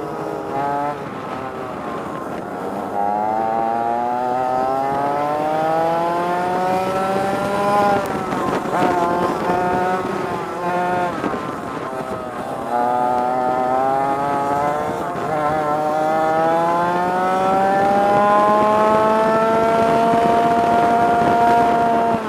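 100cc two-stroke kart engine heard on board at racing speed, its pitch climbing as it accelerates, falling off sharply around eight and eleven seconds in as it slows for corners, then a long climb that levels off near the end.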